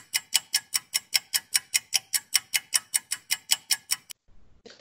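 Clock ticking sound effect, fast and even at about five ticks a second, stopping abruptly about four seconds in: a cue for thirty minutes passing.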